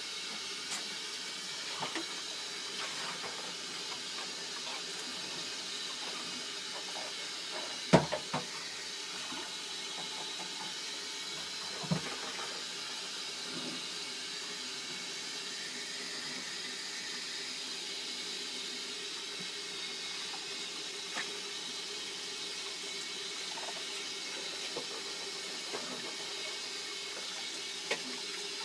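Kitchen tap running steadily into a stainless-steel sink while dishes are washed and handled, with a sharp clatter of bowls about eight seconds in and another about twelve seconds in.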